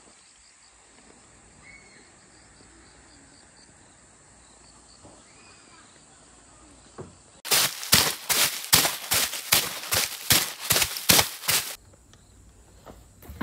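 Quiet outdoor background with a few faint chirps. About halfway through, a run of a dozen or so sharp knocks comes at about three a second for some four seconds, then stops abruptly.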